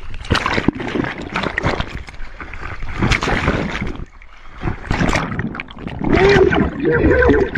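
Water splashing and sloshing around a camera held at the surface as a swimmer strokes through it, with a brief lull about four seconds in. A wavering pitched sound comes in near the end and is the loudest part.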